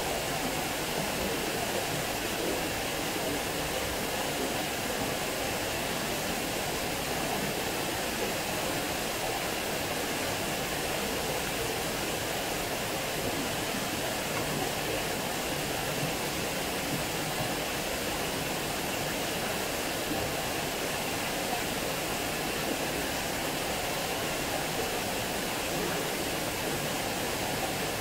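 Water spilling over a small concrete weir into a stone-walled channel: a steady, even rush of falling water.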